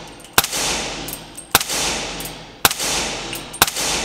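Suppressed 300 Blackout AR-15 pistol fired four times, about a second apart. Each shot is a sharp crack followed by a long echo that dies away inside the indoor range.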